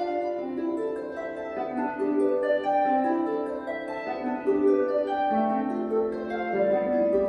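A Celtic harp played solo: single plucked notes follow one another in an even, flowing line, each ringing on into the next.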